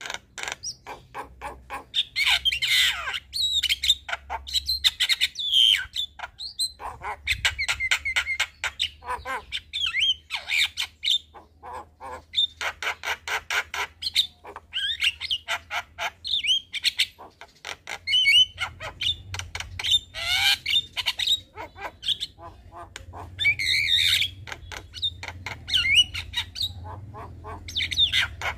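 Javan myna song: rapid clicking chatter mixed with harsh squawks and short whistled notes, over a faint low hum.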